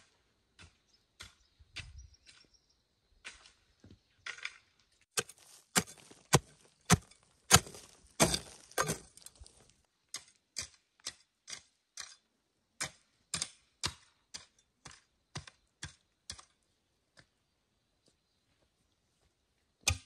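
A series of sharp knocks, about two to three a second, loudest in the middle, then stopping a few seconds before the end.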